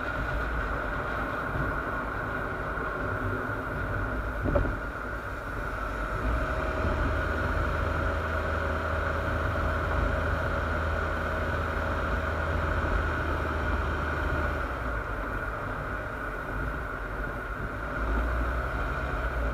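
Steady, muffled road and drive rumble of a moving car, heard through a sealed waterproof camera casing on the front bumper. A single knock about four and a half seconds in.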